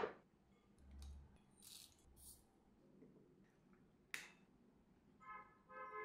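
Faint kitchen handling sounds: a brief whoosh at the start, then a sharp click about four seconds in as the plastic cap of a soy sauce bottle is twisted open, and two short pitched tones near the end.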